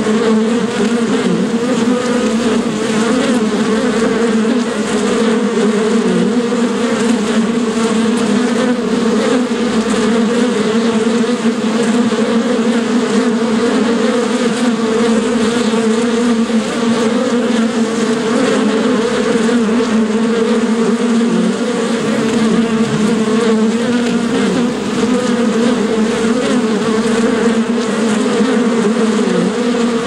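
Bees buzzing steadily, a continuous low hum whose pitch wavers slightly.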